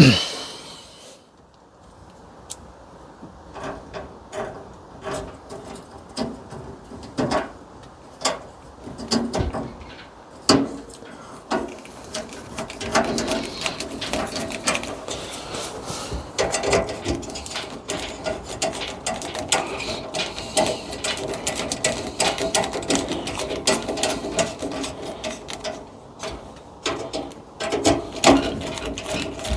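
Hand tools and small metal parts of a gas water heater's pilot assembly clicking and rattling while they are handled. The taps are sparse at first and become a rapid, dense clicking from about halfway through.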